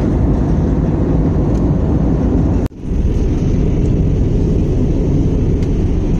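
Steady low rush of engine and airflow noise inside a jet airliner's cabin in flight, cutting out for an instant a little before halfway.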